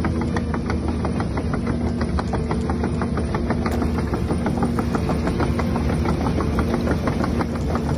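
Diesel engine idling sound: a steady low rumble with a fast, even clatter. It is the simulated engine sound of an electric RC excavator.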